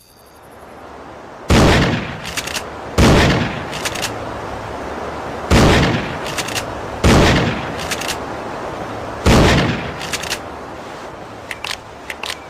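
Remington 870 Express pump-action shotgun firing five spaced shots, each followed a moment later by sharp clacks of the pump being worked. A run of light metallic clicks comes near the end.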